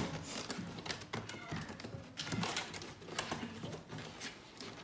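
Hands handling a large cardboard box and working its top flaps open: an irregular run of taps, clicks and scuffs on the cardboard.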